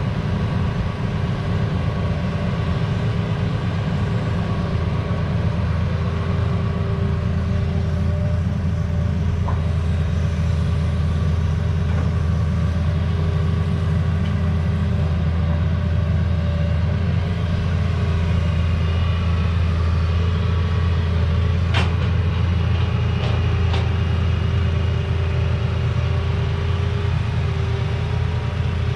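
Heavy diesel engines of a Hitachi excavator and a six-wheel dump truck running steadily while soil is loaded. A few sharp knocks come about three-quarters of the way through.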